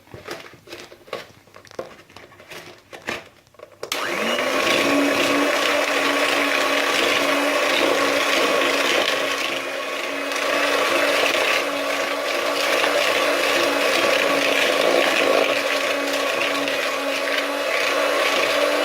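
A few light knocks, then about four seconds in an electric hand mixer starts and runs at a steady speed, beating butter and sugar until creamy; it begins to spin down right at the end.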